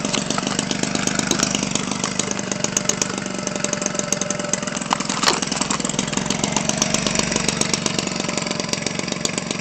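Homelite 25cc two-stroke string-trimmer engine, converted for an RC airplane and swinging an 18x6 propeller, running steadily through a gutted Homelite 30cc muffler. Its speed holds even throughout.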